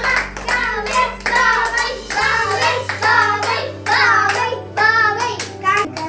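Background music: a song with a singing voice over a steady bass line that changes notes about two seconds in.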